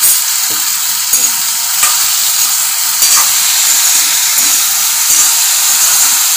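Sliced potatoes sizzling in oil in an iron kadai, with a steady hiss. A spatula scrapes and knocks against the pan every half second or so as the potatoes are stirred.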